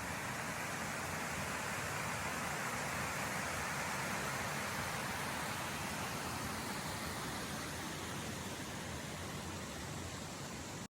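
Steady rushing roar of a 27-metre waterfall, Henrhyd Falls, its falling water crashing down into the pool, an even hiss with no other sounds, cutting off abruptly at the end.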